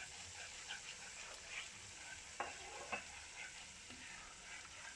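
Spiced onion-tomato masala frying in a kadhai, a spatula stirring through it with a faint sizzling crackle; two sharp clicks of the spatula against the pan about two and a half and three seconds in.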